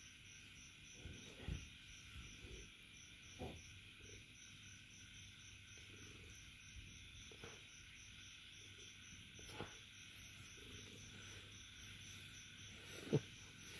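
Faint cricket chirping, an even run of about four high pulses a second, with a few soft thumps, the loudest one near the end.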